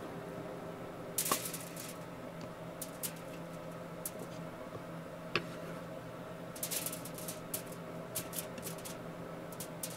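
Chef's knife chopping spring onions on a wooden cutting board: a quick run of cuts about a second in, another burst near the middle, and scattered single knocks of the blade on the board. A steady low hum runs underneath.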